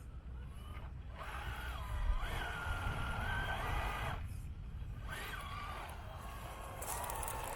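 Electric motor and gear whine of a 1/6-scale RC Willys MB jeep driving, rising and falling with the throttle in several spurts with short pauses between, over a steady low rumble.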